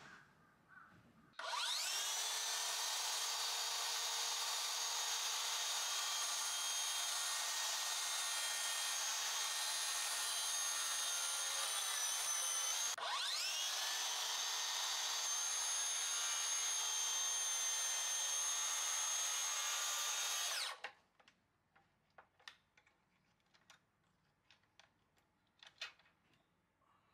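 Makita cordless plunge track saw starting up and ripping a hinoki (Japanese cypress) board along its guide rail, a steady high motor whine under load. About halfway through, the motor dips briefly and spins back up. It cuts off about two-thirds of the way in, followed by a few light clicks and knocks.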